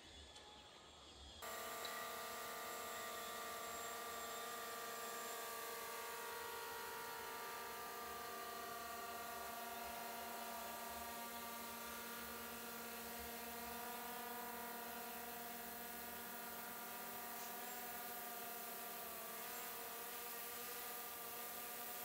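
A steady motor buzz at a constant pitch, starting suddenly about a second and a half in and holding level throughout.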